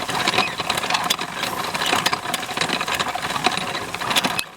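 Hand-crank ice cream maker being churned: the crank gearing clatters and the can turns through packed ice and rock salt, a steady rattling grind full of small clicks. This is late in the churn, with the cream nearly frozen.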